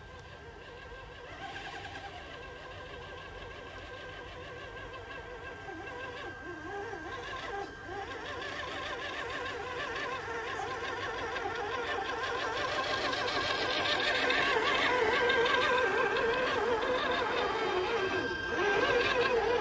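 Electric motors and geared drivetrains of RC scale crawler trucks whining as they drive over a dirt trail, the pitch wavering up and down with the throttle over a steady high whine. The sound grows steadily louder as the trucks come closer.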